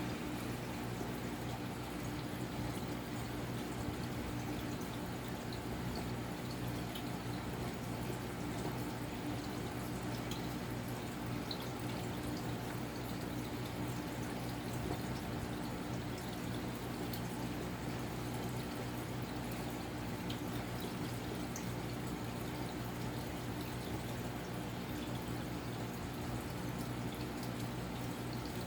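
Casablanca Delta II 52-inch ceiling fan running steadily: an even motor hum under a constant rush of moving air.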